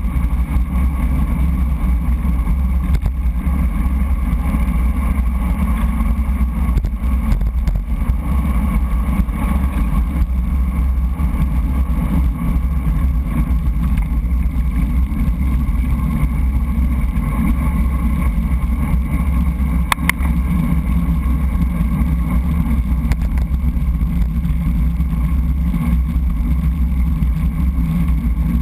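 Wind rushing over a GoPro's microphone on a moving road bike: a steady, loud low rumble. There is a brief click about twenty seconds in.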